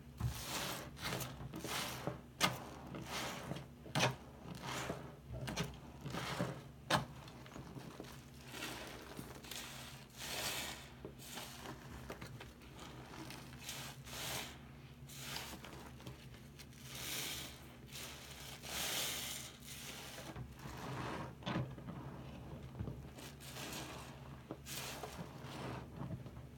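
Wet, soapy sponges being pressed and squeezed by hand in a sink of water, making squelching, crackling squishes as water and foam are forced through the pores. The squishes are short and sharp, one or two a second, for the first several seconds, then become longer, slower squeezes.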